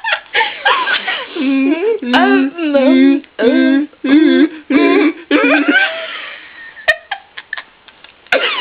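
Young female voices making deliberate weird vocal noises: a string of about seven short, wavering sung syllables, then quieter voicing.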